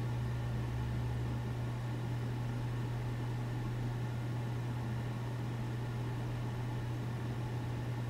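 Steady low hum with a faint hiss behind it: background noise picked up by the microphone.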